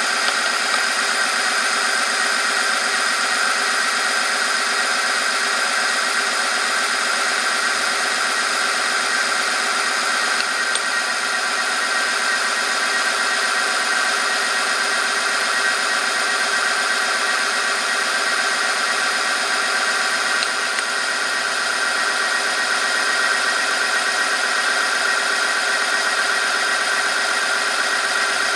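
Oil-film wear tester running under load: its electric motor drives the spinning shaft while the weighted test sample rubs against it in 0W-30 engine oil. It makes a steady, unchanging mechanical whine with a strong high tone.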